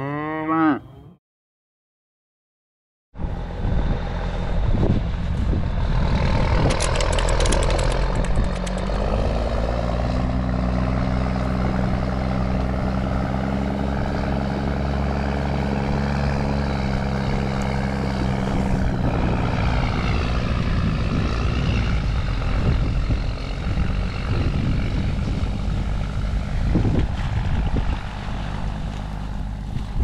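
A cow's moo that cuts off about a second in, then a short silence. After that, wind rumbles on the microphone over an engine running steadily, its drone strongest in the middle stretch; this is plausibly the rig drawing a slurry pipe across a river.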